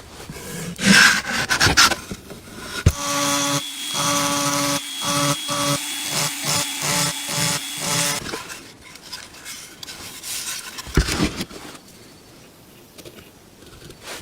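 Scraping and rubbing, then a small power tool running in a string of short stop-start pulses, with more faint scraping near the end.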